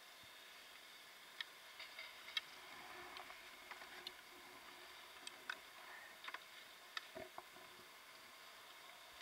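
Light, scattered clicks and taps of ski equipment being handled, over a faint steady hiss.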